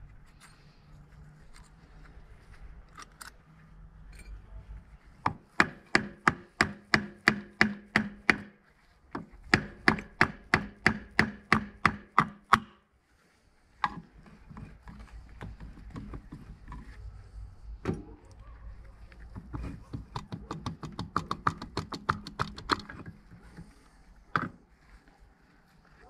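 Rapid series of sharp, ringing metal knocks, about four or five a second, in two runs of roughly three seconds each, then a softer, quicker run with a few single knocks: a tool tapping on parts of a Yamaha YZF R1 engine being taken apart.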